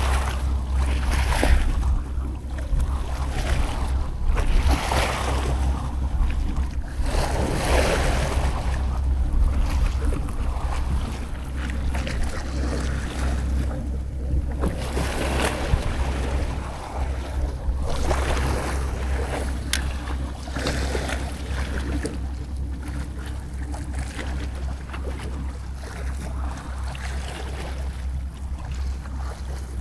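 Small sea waves washing and splashing against a rocky seawall, swelling and falling every few seconds, over a steady low rumble of wind on the microphone.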